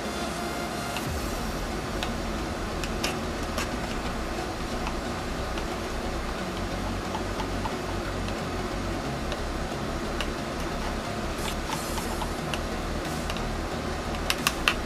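A disposable plastic butter knife stirring two-part casting resin in a plastic cup. The knife gives light, scattered ticks against the cup, then three quick sharp taps near the end, over a steady background hiss.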